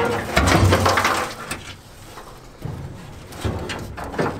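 A rusty metal fuel tank being set down and shifted on top of parts in a car's engine bay: scraping and knocking of metal, loudest in the first second and a half, with a few more knocks near the end.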